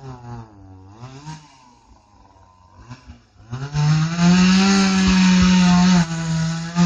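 Two-stroke chainsaw ticking over at low revs, then opened up to full throttle about three and a half seconds in and held there at a loud, steady high pitch, with a brief dip near the end.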